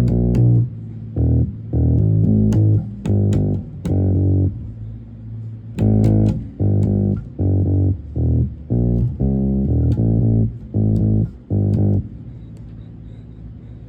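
Amplified guitar playing a riff of short, low, clipped notes with a click at each pick attack. The playing pauses once around the middle and thins out near the end. The tone is dark and muffled, with little top end.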